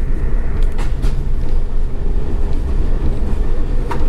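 A moving train heard from inside a passenger coach: a steady low rumble of the wheels running on the rails, with a couple of faint clicks.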